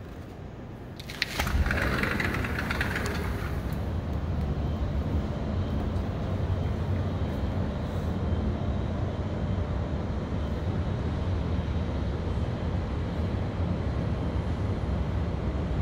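Wind blowing across a phone's microphone on a high-rise balcony. It starts about a second and a half in with a short hiss, then carries on as a steady low noise.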